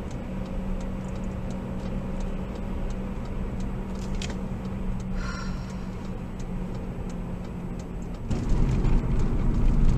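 Car cabin noise while driving, with a steady low hum and the even ticking of a turn-signal indicator. A louder low rumble comes in near the end.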